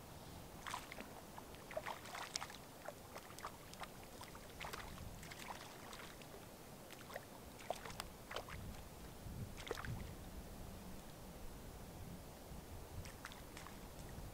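Lake water lapping, with irregular small splashes and clicks over a low rumble of wind.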